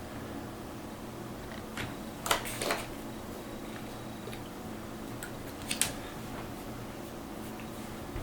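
Dell Latitude D620 laptop's cooling fan running steadily after power-on, with a few faint clicks about two and six seconds in.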